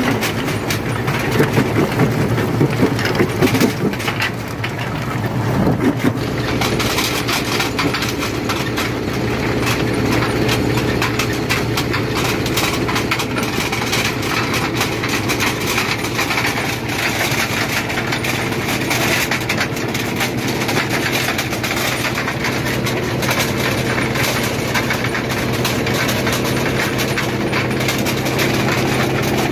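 Rock crusher running: a steady machine hum with a continuous crackle of stone being broken. The first few seconds carry louder, irregular knocks, after which the sound settles to an even run.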